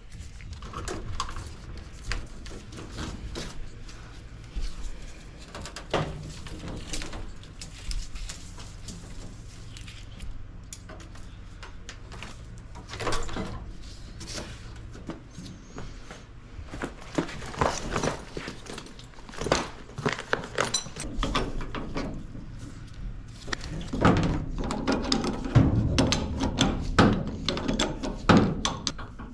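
Irregular knocks, clunks and clatter of hands and tools working on an old furnace installation, over a steady low hum. The knocking is busiest and loudest near the end.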